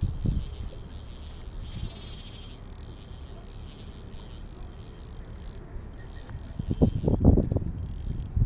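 Wind rumbling on the microphone over the faint whir of a spinning reel being cranked, and a few louder low thumps about seven seconds in.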